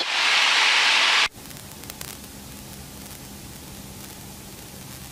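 Loud hiss of engine and wind noise from a light airplane's cockpit through an open headset intercom microphone, cut off abruptly about a second in as the voice-activated intercom closes. After that comes a faint, steady low engine drone.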